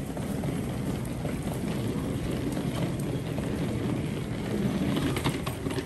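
Steady rumbling ambience of a busy station concourse: a wheeled suitcase rolling over the hard floor close by, with footsteps and a few sharp clicks near the end.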